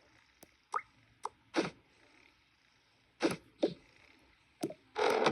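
Scattered light knocks and clicks, about nine in all, of small toys being handled and set down. Near the end comes a brief, louder rustling scrape.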